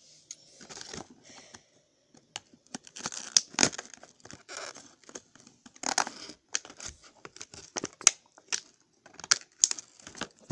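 Clear rigid plastic toy packaging crackling and snapping as it is worked open, in irregular sharp crackles.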